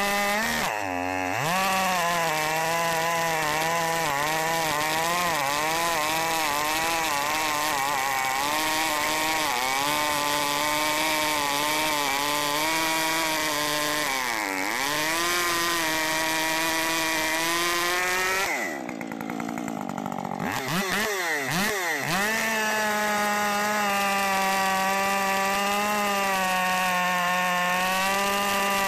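Husqvarna 550 XP two-stroke chainsaw with a modified muffler running at full throttle while cutting through a large log, its pitch wavering as the chain bogs and frees in the wood. About two-thirds of the way through, the throttle drops off briefly and the engine is revved up and down a few times. It then returns to a steady full-speed cut.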